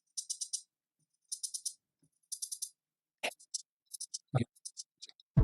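Quick, bright rattling percussion hits in three short runs about a second apart, then scattered single clicks. A drum-machine beat with deep bass starts at the very end.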